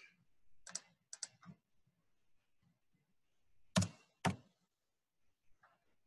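Scattered clicks of a computer keyboard and mouse as values are typed into fields: a few light taps about a second in, then two sharper clicks a half second apart near four seconds.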